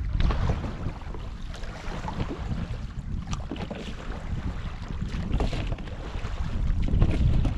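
Wind buffeting the microphone in a steady low rumble, with small waves lapping and splashing on a pebble lakeshore every second or two.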